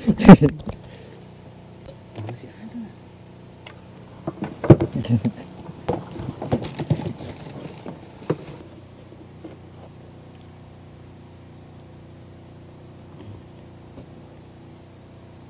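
Steady high-pitched insect chorus, unbroken throughout. A few loud knocks and handling sounds cut across it, near the start and again around the middle.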